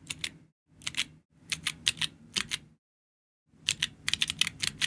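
Georgi stenographic keyboard keys clacking as steno chords are pressed: short clusters of quick clicks, a pause of about a second, then a denser run of clicks near the end.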